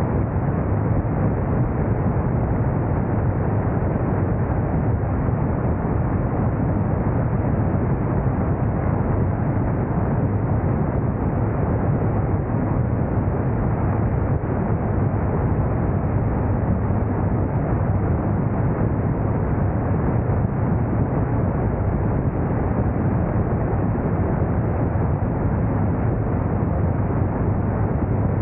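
Motorcycle riding at steady road speed: a constant rush of wind on the microphone over the low drone of the engine and tyres.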